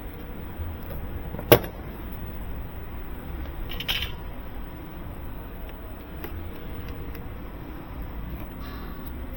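A single sharp click about a second and a half in, then a short scraping rustle near four seconds, over a steady low rumble.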